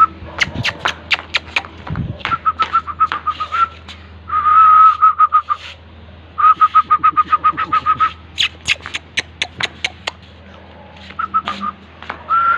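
High-pitched whistling in fast trills of short pips, all at one steady pitch, with a few longer held notes and sharp clicks scattered between them.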